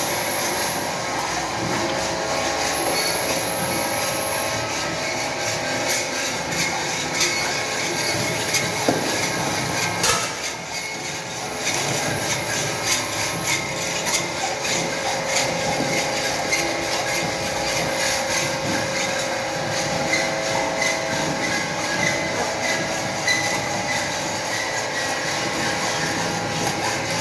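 Continuous metalworking noise from machine-shop tool bit and bench work: steady scraping and grinding with ringing, squealing tones and frequent short strokes.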